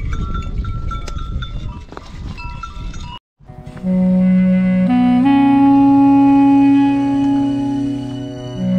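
For about three seconds, animal bells clink over livestock sounds. Then, after a brief cut to silence, a reedy folk wind instrument, a bansi, starts playing long held notes over a steady drone.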